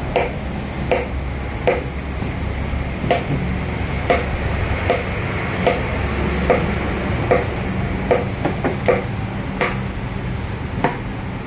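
Wooden mallet striking a hand chisel into a wood relief carving: sharp wooden knocks a little faster than one a second, with a quick run of four blows about two-thirds of the way through.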